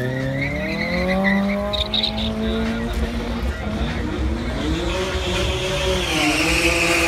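Cars launching off a drag-strip start line and accelerating hard, the engine pitch climbing steeply over the first two seconds with a high tyre squeal. Later an engine note holds steady, then drops near the end.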